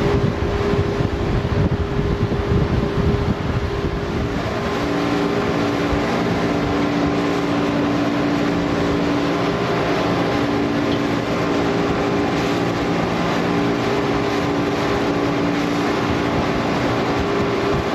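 Twin 200-horsepower boat engines running steadily under way, with wind buffeting the microphone in the first few seconds.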